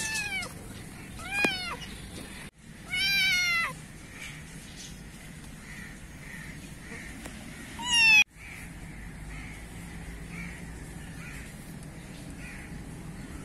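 A young black-and-white kitten meowing four times in high, thin calls: two short meows close together, a longer drawn-out one about three seconds in, and a short loud one about eight seconds in.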